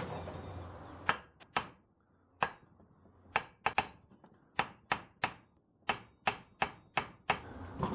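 Hammer tapping a seized brake caliper from a 1992 Toyota pickup while it is held under compressed-air pressure, to free stuck pistons: about sixteen sharp metal taps at an uneven pace, starting about a second in.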